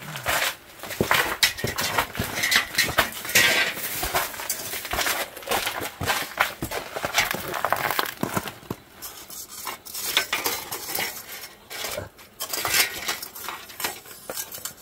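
Close handling noise: irregular rustling and scraping with many light clinks and knocks, as a burbot is handled and laid along a measuring board on snow.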